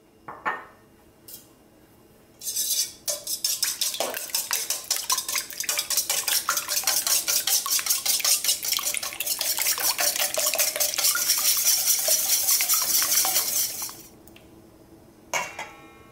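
Four raw eggs being beaten by hand in a stainless steel bowl: rapid, even strokes of the utensil scraping and clattering against the metal for about eleven seconds, after a couple of light clinks. The beating stops sharply near the end.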